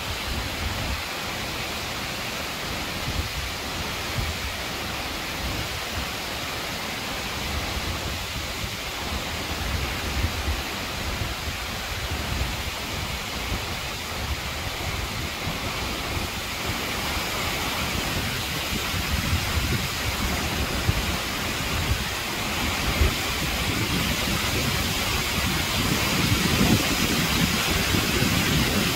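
Acquafraggia waterfall: water plunging down a rock face and splashing onto the rocks below, a steady rush. It grows louder and hissier through the second half.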